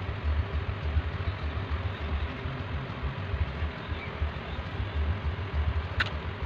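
Steady low rumble with a hiss over it, and a short sharp click near the end.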